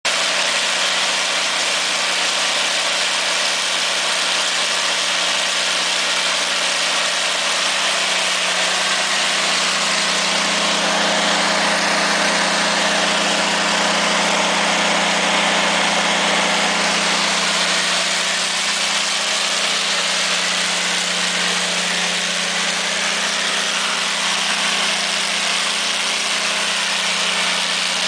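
Cummins QST30 V12 diesel engine of a 750 kW standby generator set running steadily and loudly, a constant even drone with no change in speed.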